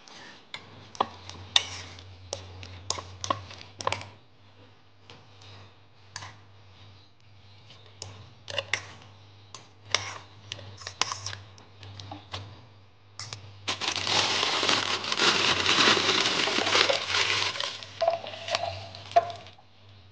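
A metal fork clinks and scrapes against a ceramic bowl in quick, irregular clicks while a crumbled tofu and egg filling is mixed. Later a plastic bag crinkles for several seconds as it is filled and handled; this is the loudest part. A steady low hum runs underneath.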